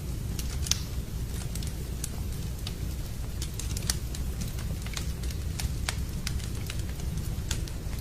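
Wood fire burning in a fireplace, with irregular crackles and pops over a steady low rumble of the flames; two sharper pops stand out, one near the start and one about halfway through.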